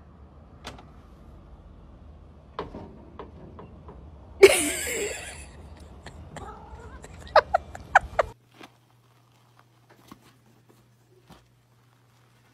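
A cat gives one loud yowl about four and a half seconds in, followed near the end of the scene by a quick run of short, sharp sounds. After about eight seconds there is near silence.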